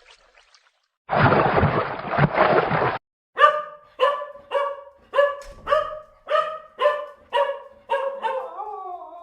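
A loud, noisy rush for about two seconds, then a dog barking about ten times in quick succession, roughly two barks a second, ending in a drawn-out wavering whine near the end.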